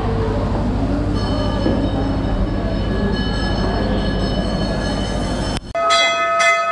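A steady low rumble fills the temple hall, with brass temple bells ringing faintly over it from about a second in. Near the end the sound cuts off abruptly and gives way to loud, repeated strikes of a hanging brass temple bell.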